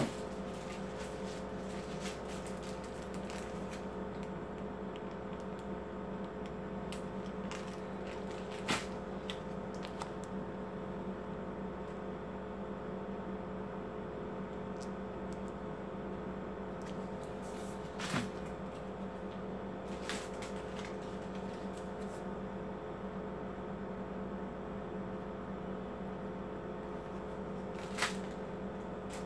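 Steady electrical hum made of several fixed tones, from a running fan or appliance, with four brief clicks spread through it.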